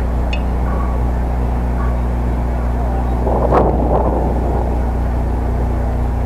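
Steady low hum of outdoor background noise, with one sharp crack about three and a half seconds in.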